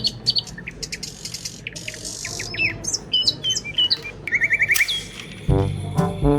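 Small birds chirping and twittering in short calls, with a quick run of rapid notes about four seconds in. Background music comes back in near the end.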